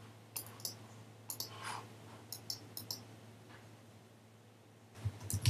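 Scattered light clicks, a few a second, over a low steady hum, dying away after about three seconds.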